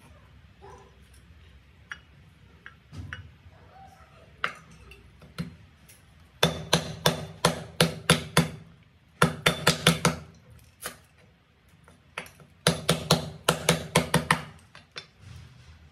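Meat cleaver striking lemongrass on a wooden chopping board: a few scattered knocks, then three quick runs of hard strikes at about five or six a second.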